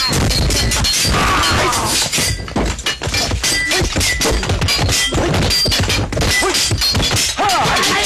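Fight sound effects from a staged brawl: a dense run of whacks, thuds and crashes, with a few short shouts near the start and end.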